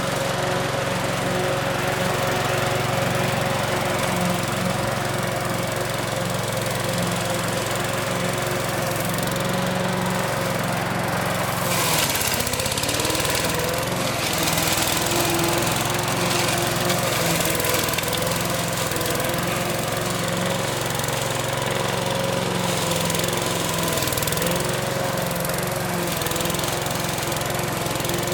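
A 160cc lawn mower engine running steadily while cutting tall grass, with a short rise in hiss about halfway through.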